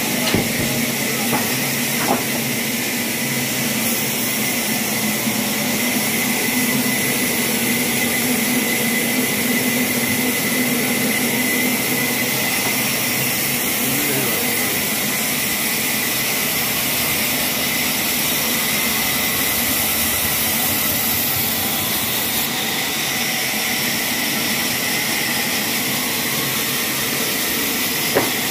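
A steady, loud hiss, with a faint steady hum underneath and a few sharp clicks near the start and again near the end.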